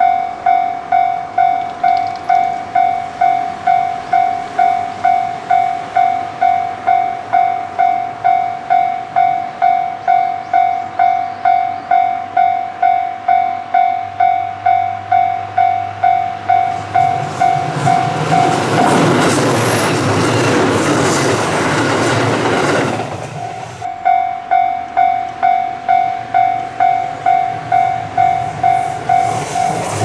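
Japanese level-crossing warning bell ringing about twice a second as a diesel railcar comes up the line; for several seconds the train's engine and wheel noise, with clicks over the rail joints, fills the sound while the bell stops. The bell then rings again, and another train's rush starts near the end.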